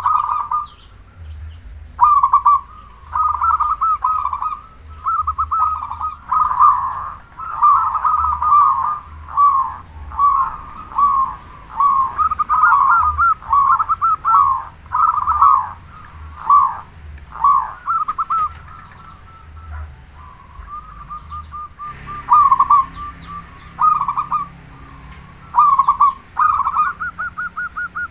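Local zebra dove (perkutut) cooing, its rolling, trilled phrases repeated one after another with short gaps, and a brief lull a little past the middle.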